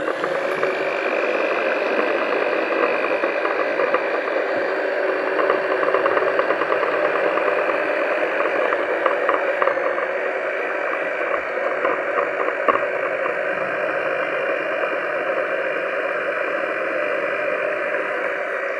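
Electric hand mixer running steadily on a low speed, its beaters working through thick choux paste, with a steady motor whine.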